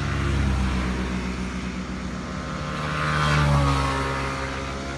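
A motor vehicle engine running and passing close by, swelling to its loudest about three and a half seconds in, its pitch dropping a little as it goes away.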